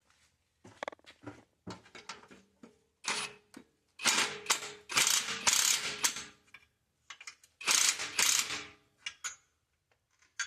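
Hand socket ratchet wrench being worked in repeated strokes, a rapid clicking rasp in short bursts, with the longest and loudest runs from about four to six and a half seconds in and again around eight seconds.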